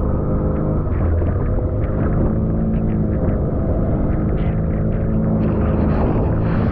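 Small fishing boat's motor running at a steady speed. Close to the microphone there are scattered knocks and rustles, which grow busier near the end as the camera is handled.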